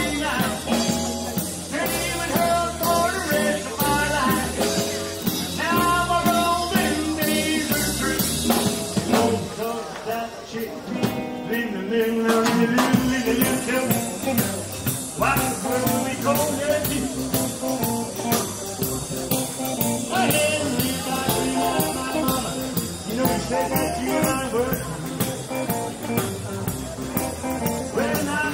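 Background music with singing over a steady beat.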